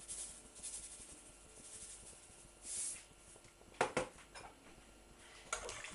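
Kitchen handling sounds as the soup is tasted: a short breathy sound a little before the middle, then a few sharp clinks of a spoon against the soup pot about two thirds in and once more near the end.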